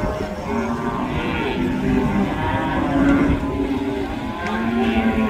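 Several cattle mooing, long drawn-out calls that overlap one another, over a steady low rumble.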